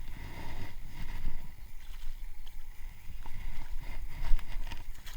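Gusting wind rumbling on the microphone beside moving water, with a few light clicks or knocks.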